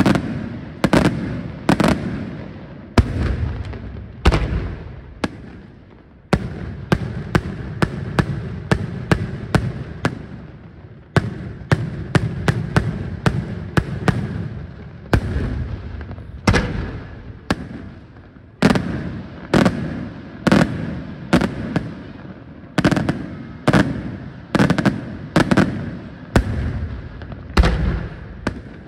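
Daytime fireworks display: aerial shells bursting in a continuous barrage of sharp bangs, several a second at times, each trailing off in an echo.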